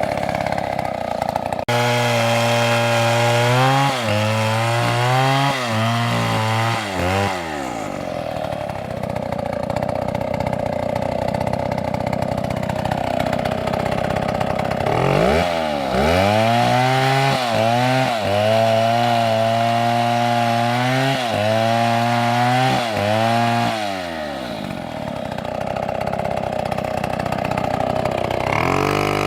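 Two-stroke chainsaw cutting through wood: the engine note repeatedly dips and recovers as the chain bites, in two long spells about 2 to 7 seconds in and from about 15 to 24 seconds in, with the saw running at steady high revs in between.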